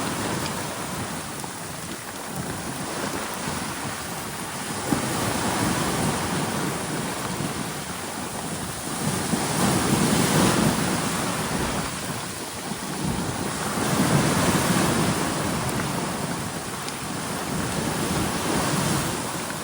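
Steady rain falling, with ocean waves washing in beneath it; the surf swells louder every four to five seconds.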